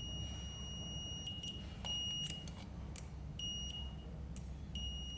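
A multimeter's continuity buzzer beeps as its probes are held on the terminals of a refrigerator compressor start relay. One steady high beep breaks off about a second in, then three short beeps follow, each as contact is made again. The beep signals that the relay conducts.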